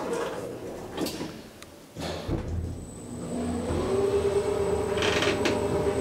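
Lift car's stainless-steel sliding inner doors running closed, with a low thud about two seconds in. The lift then sets off: a faint high whine comes in, and a steady motor hum swells and holds as the car travels.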